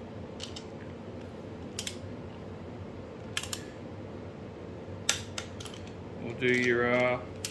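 Click-type torque wrench snapping off, one sharp click at a time, as each cylinder-head stud nut reaches 20 ft-lb on the first tightening pass. The clicks come every second or two, with a quick few together about five seconds in.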